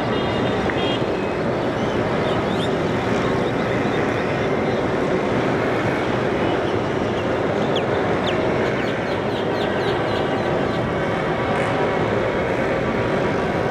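Constant rushing outdoor noise, with a run of short, high bird chirps a little past the middle.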